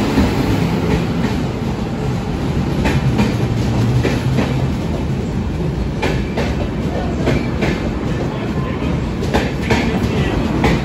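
An Indian Railways electric locomotive and its red passenger coaches run past along the platform. There is a steady loud rumble of wheels on rails, with sharp clacks as the wheels cross rail joints, most of them in the second half.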